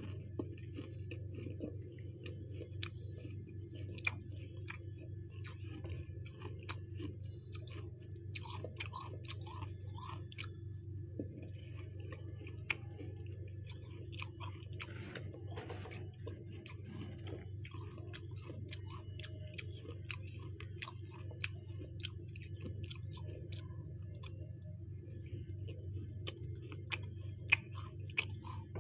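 Freezer frost being chewed: scattered crisp crunches and crackles of packed ice breaking between the teeth, over a steady low hum.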